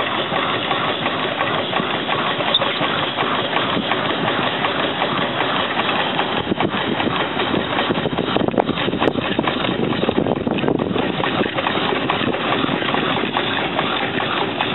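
Steam traction engine running as it drives slowly across the field.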